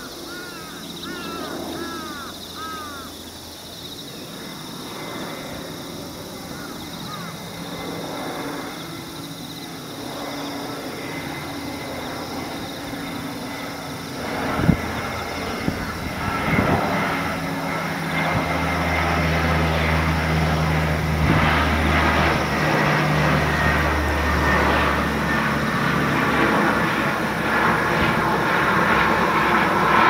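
Low engine drone of a passing aircraft, growing steadily louder through the second half. A few quick, arching bird chirps sound in the first few seconds.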